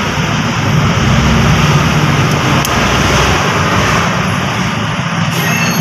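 Steady motor-vehicle engine noise: a low hum under an even hiss, with no sudden events.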